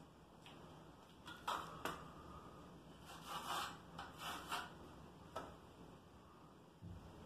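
Trowel scraping mortar across the back of a ceramic subway tile, a few short faint scrapes and rubs.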